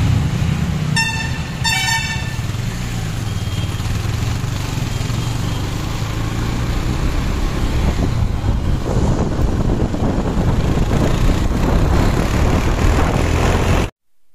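Motorcycle engine running steadily while riding through traffic, with two short horn toots about one and two seconds in. The sound cuts off abruptly near the end.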